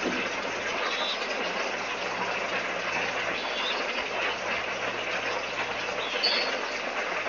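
Steady outdoor night background noise, an even hiss-like drone with no change in level, with three brief high chirps about one, three and a half and six seconds in.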